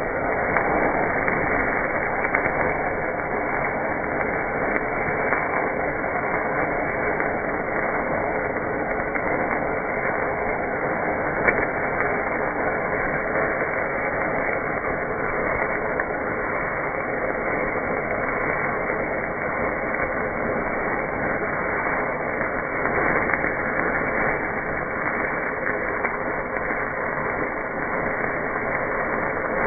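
Steady, muffled static-like hiss that runs on without change, with a few faint clicks.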